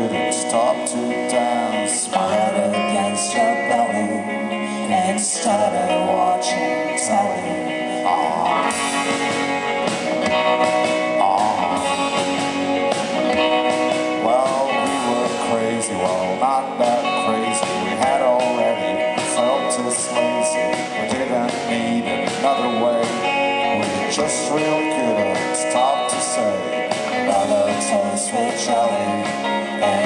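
Indie band playing live: two electric guitars and a sung melody with drums, recorded from the audience.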